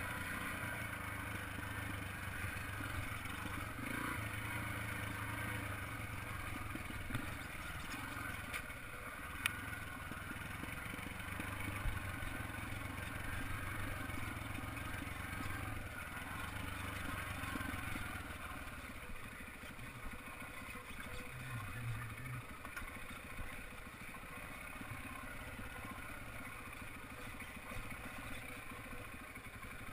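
Yamaha TT-R trail bike's air-cooled four-stroke single-cylinder engine running under way at low to moderate revs, easing off and quieter through the last third. A few sharp knocks and rattles from the bike over roots and rocks.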